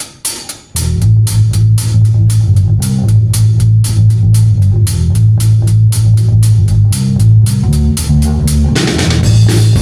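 A band playing live: a drum kit keeps a steady beat under bass guitar and guitar. The bass and the full band come in under a second in, and a cymbal wash comes in near the end.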